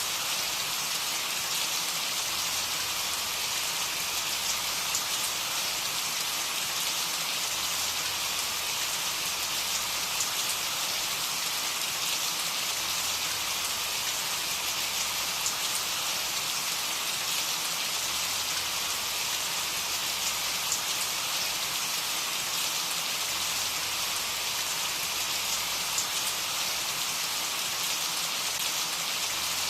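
Steady rain falling: an even, constant hiss with occasional faint drop ticks.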